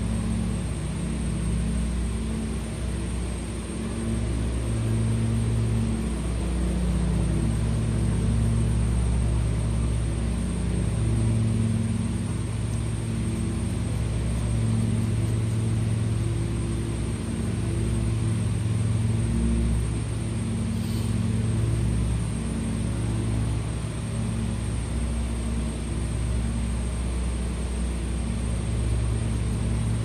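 A steady low droning rumble, like a motor running, that swells and eases slightly over the seconds.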